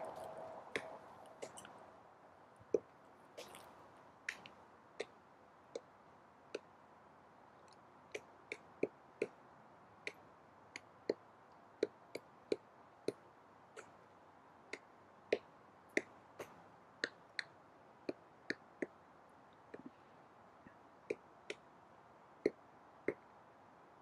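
Female pileated woodpecker chipping at a dead tree with her bill. Irregular single sharp knocks, roughly one or two a second, as she pries off pieces of wood while foraging.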